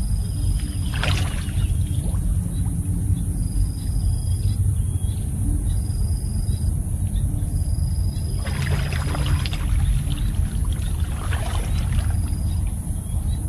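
Water splashing and sloshing as a person wades through a flooded rice field: one splash about a second in, then more splashing from about eight to twelve seconds. A steady low rumble runs under it.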